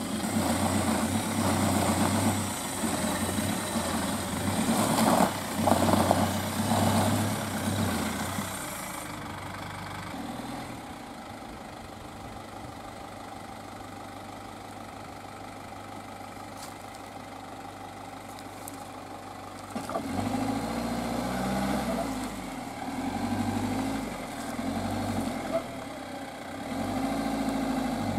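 GAZ Sobol 4x4 van's engine revving under load as the wheels churn in deep mud, the van high-centred on its axles. It drops to a quieter steady idle for several seconds, then from about two-thirds in the revs rise and fall again and again as the van tries to rock out of the rut.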